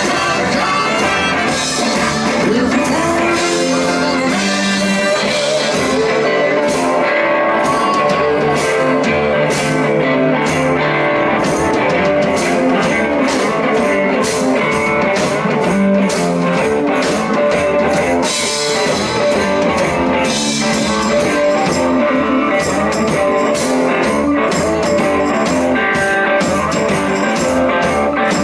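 Live blues-rock band playing, with singing and guitar.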